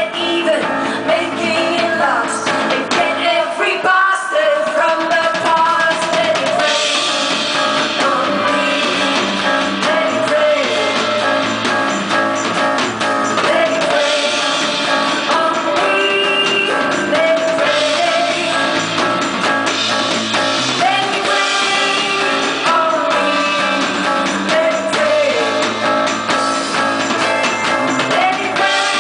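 Live band playing a rock song: a woman singing lead over drum kit and guitar.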